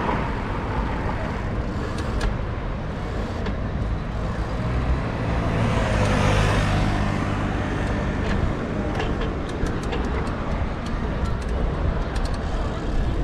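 City street traffic heard from a moving bicycle: a steady wash of road noise and low rumble, with a motor vehicle's engine swelling as it passes close about halfway through.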